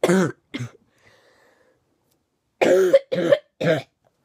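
A sick girl coughing: two coughs right away, then a run of three coughs about two and a half seconds later.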